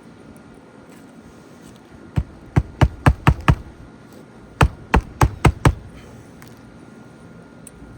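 Hammer driving roofing nails into a replacement shingle: a run of six quick strikes, a pause of about a second, then five more.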